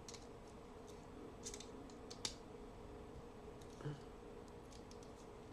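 Faint, scattered metal clicks and scrapes: a Swiss Army knife prying at a stiff, rusty tool on a Kamp-King pocket knife to get it open. The sharpest click comes a little over two seconds in.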